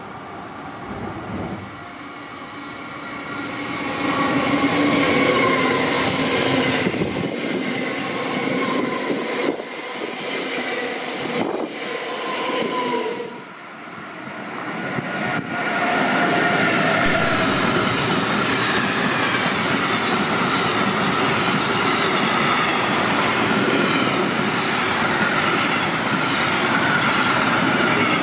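Trains passing on an electrified main line. In the first half a train crosses a bridge overhead. About halfway through, the sound changes to a long freight train of empty stake wagons rolling past steadily, its wheel and rail noise carrying a steady high-pitched tone.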